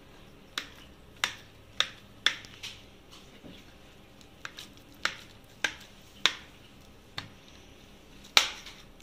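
Knife cutting a block of paneer into cubes on a plate, the blade clicking sharply against the plate with each cut: about ten clicks, irregularly spaced, the last one the loudest.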